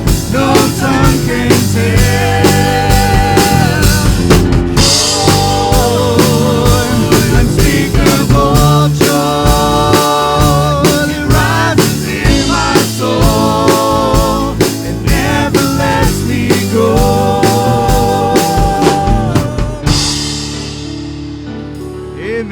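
Live church worship band playing: a drum kit keeps a steady beat under bass, chords and singing voices. About 20 seconds in the song ends, and the cymbals ring out and fade.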